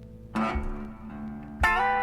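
Guitar music: two chords plucked about a second and a quarter apart, each left ringing.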